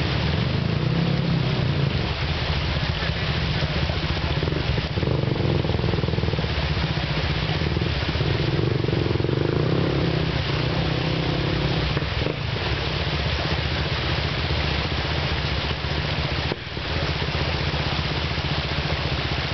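Jeep's engine running under load as it crawls up a rock ledge, the engine note shifting as the throttle is worked.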